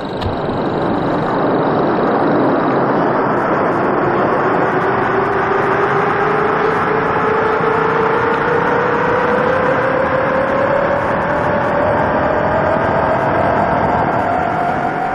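Science-fiction spaceship engine sound effect: a dense rushing noise with a tone climbing slowly and steadily in pitch.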